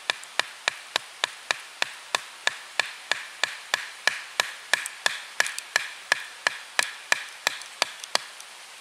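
Batoning: a wooden club knocking on the spine of a bushcraft knife, driving the blade down through a wooden stave to split it. Sharp, even knocks about three a second, which stop about 8 seconds in.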